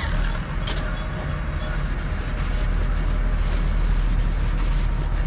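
Shovel digging into packed avalanche snow: one sharp scrape about a second in, then rough scraping and crunching of snow, over a steady low rumble.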